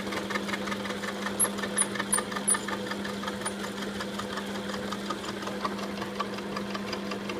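Deckel FP1 milling machine running with a steady motor hum and a fast, even ticking, with a few sharp clicks in the first couple of seconds. Its power feed has just kicked out of gear, so the table is not feeding.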